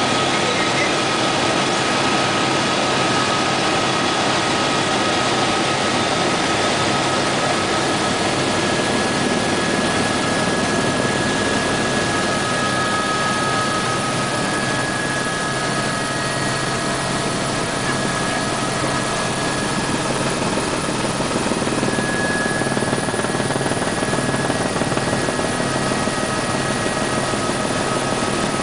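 Aérospatiale AS350B Écureuil helicopter in flight, heard from inside the cabin: the steady, loud noise of its single turboshaft engine and main rotor, with a steady high whine over it.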